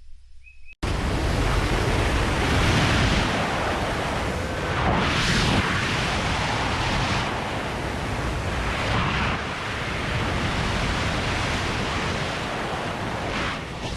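A loud rushing noise that cuts in suddenly about a second in and keeps going, swelling and easing several times, like surf or wind.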